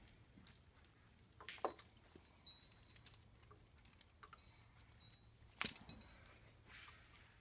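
Scattered light clicks and small metallic clinks from a horse's halter and lead-rope hardware being handled, the loudest about a second and a half in and again just before six seconds in.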